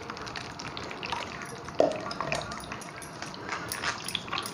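Blended watermelon juice pouring from a steel mixer jar into a wire-mesh strainer, with a brief clink about two seconds in. Near the end a spatula scrapes the pulp against the mesh in quick short strokes as the juice drips into the bowl below.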